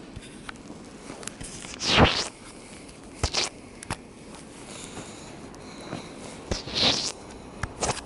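Footsteps crunching in deep fresh snow: a few uneven steps, the loudest about two seconds in and again just before seven seconds, with softer crunches and small clicks between.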